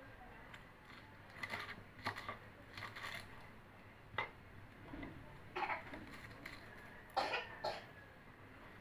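Kitchen knife slicing through cabbage onto a wooden chopping board: short, irregular crunchy cuts, about eight of them, spaced roughly half a second to a second apart.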